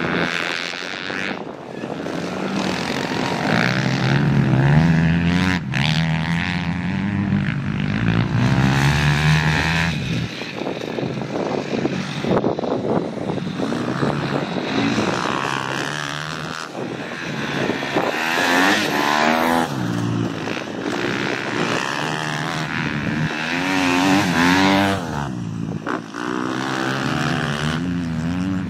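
Several motocross bike engines revving, their pitch rising and falling over and over as the riders open and shut the throttle, with more than one bike often heard at once.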